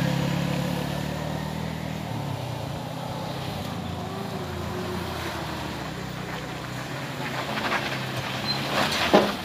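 Engine of a Mitsubishi Colt L300 pickup running steadily under load as it climbs a steep, broken incline, growing louder and busier as it comes closer. There is a sharp knock about nine seconds in.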